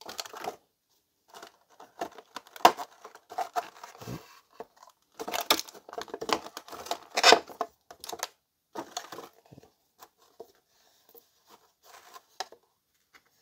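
Clear plastic blister packaging crinkling and crackling as it is pulled out and handled, in irregular spells that are loudest through the middle, then thinning to scattered quiet rustles and clicks.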